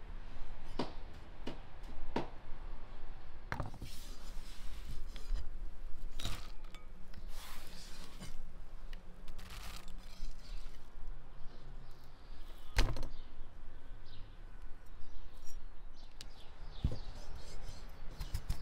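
Food-preparation handling sounds at a glass bowl and wooden cutting board: scattered light clicks, clinks and rustles, with one sharp knock about two-thirds of the way through.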